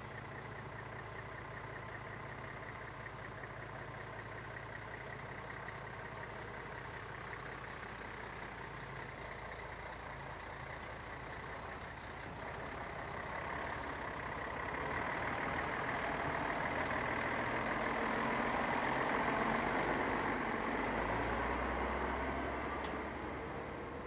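Heavy eight-wheeled military truck's diesel engine running steadily as the truck drives across a floating pontoon bridge. It grows louder as the truck comes ashore close by, about halfway through, and eases off near the end.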